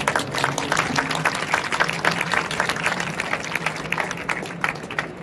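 Audience applauding: many hands clapping, dying away near the end.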